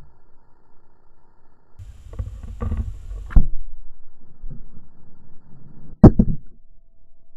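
Pembroke Welsh corgi puppy nosing and mouthing a small action camera. Its fur and muzzle rub against the microphone in low scraping rumbles from about two seconds in, with sharp knocks on the camera body about three and a half seconds in and again, loudest, about six seconds in.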